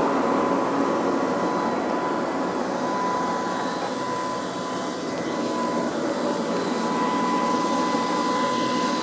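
Tractor pulling a Mzuri Pro-Til strip-till seed drill through the soil while sowing: steady machinery and engine noise with a steady high whine over it.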